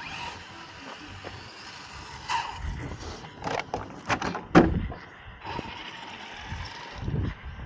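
Several short knocks and clatter of a radio-controlled car's plastic body and chassis being handled on asphalt, the loudest knock a little after halfway.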